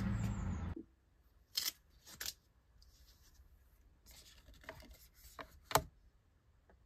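A steady outdoor rumble and hiss that cuts off suddenly under a second in, then a few light clicks and handling rustle as a phone is set against a plastic wireless charging stand, ending in one sharp click near the end.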